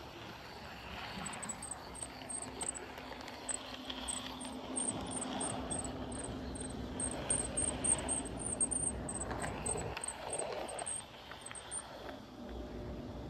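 HO-scale model train running along the track, a steady rumbling whir, with short high cricket-like chirps repeating about three times a second through most of it.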